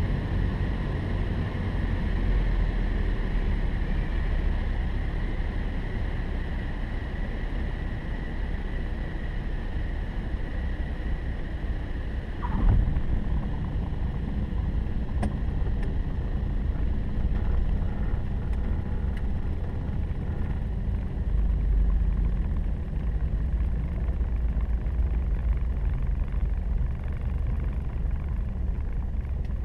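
Cabin noise of a single-engine light aircraft's piston engine and propeller through landing and roll-out. A short, loud chirp about twelve seconds in marks the tyres touching the runway.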